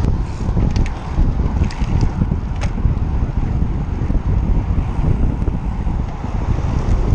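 Wind buffeting the microphone of a camera mounted on a moving road bike: a loud, gusting low rumble, with a few short sharp clicks in the first three seconds.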